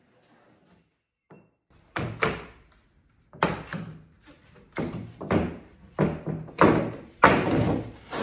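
Wooden boards knocking on a table saw's metal top as they are handled: after about two seconds of near quiet, a run of about a dozen loud thunks, roughly two a second.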